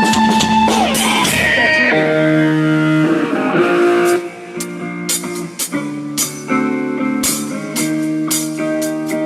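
Rock band playing live, electric guitar to the fore with held notes over sharp drum or cymbal strikes. The playing drops in loudness about four seconds in.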